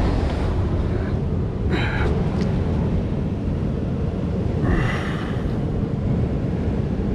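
Steady rumble of surf and wind buffeting the microphone on a rocky seashore. Two brief higher-pitched sounds come through it, about two seconds in and again about five seconds in.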